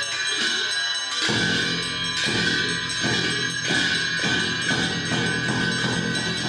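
Tibetan Buddhist monastic ritual music: cymbals ringing with a frame drum struck in strokes that come faster and faster.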